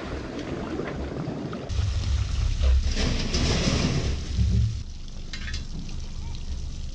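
Water splashing and churning as a pontoon boat slides off its trailer into the lake. From about two seconds in, wind rumbles on the microphone in gusts, then eases near the end.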